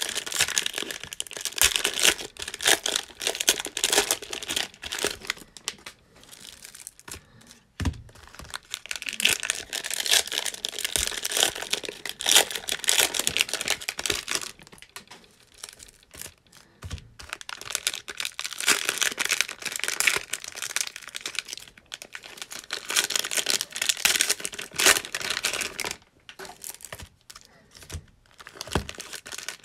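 Foil trading-card pack wrappers crinkling and tearing as packs are opened and handled, in irregular bursts with a few short pauses, and a few soft thumps.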